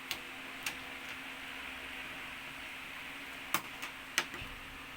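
A few sharp clicks and taps over a steady low hiss, the loudest two about three and a half and four seconds in: tools and small parts being handled while a flat-screen TV is taken apart.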